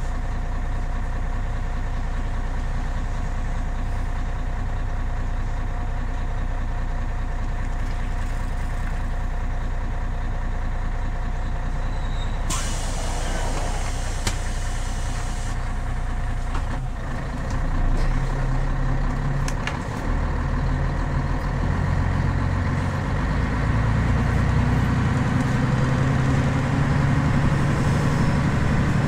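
Scania city bus's 11-litre DSC 11 diesel idling while stopped, then a hiss of compressed air for about three seconds near the middle, after which the engine pulls away and gets louder as the bus picks up speed.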